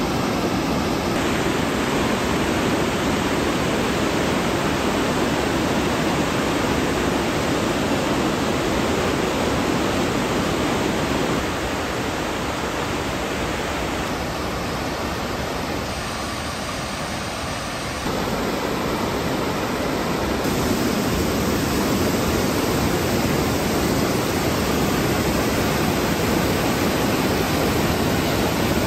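Whitewater mountain creek rushing over rocks and a small cascade: a loud, steady rush of water. It drops somewhat in level about a third of the way in and comes back up about two-thirds through.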